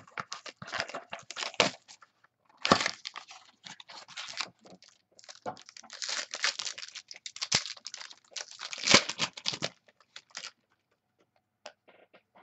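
Foil trading-card pack wrappers being torn open and crinkled by hand, in irregular bursts of crackling that thin out near the end.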